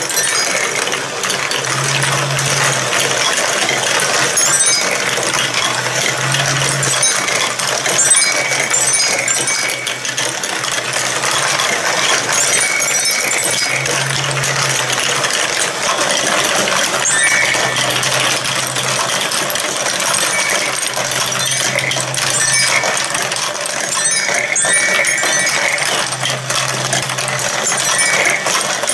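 Many plastic balls and marbles rolling and clattering along a plastic block marble run, knocking into one another and dropping into plastic catch bowls, a steady stream of small clicks.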